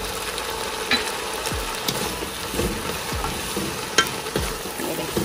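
Chopped vegetables sizzling as they fry in a granite-coated wok, stirred with a wooden spatula that scrapes and knocks against the pan a few times.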